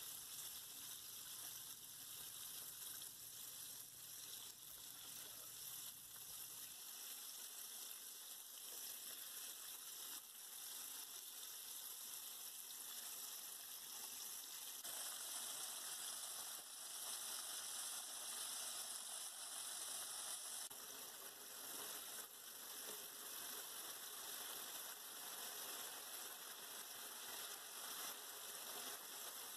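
Flour-coated chicken tenders deep-frying in hot oil in a pan: a steady, faint sizzle and crackle of the oil bubbling around the battered pieces.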